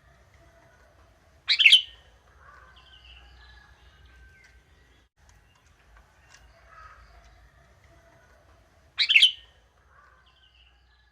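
Young sooty-headed bulbul (kutilang) giving the same short, loud call twice, about a second and a half in and again near the end, some seven and a half seconds apart, with fainter chirps between.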